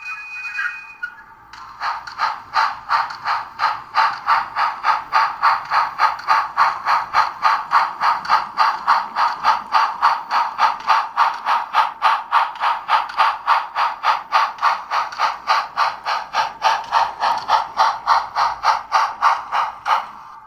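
Sound decoder of an HO-scale Bachmann Spectrum 2-10-0 Russian Decapod model steam locomotive playing steam exhaust chuffs through its small onboard speaker, an even beat of about three chuffs a second. It starts about two seconds in and cuts off suddenly at the end.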